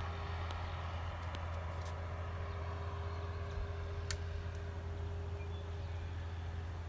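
Steady low mechanical hum with a faint held tone above it, and a few light clicks, the sharpest about four seconds in.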